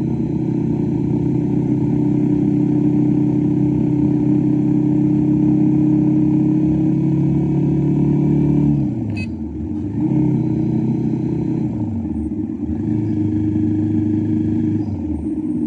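Motorcycle engine running under steady throttle at cruising speed. About nine seconds in, the engine note drops sharply with a short click as the throttle closes. It then climbs and dips twice more as the bike slows and speeds up again.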